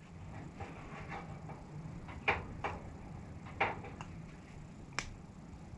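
A few light clicks and taps of a small metal hydraulic thermal relief valve being handled and fitted with O-rings, the sharpest one about five seconds in, over a steady low hum.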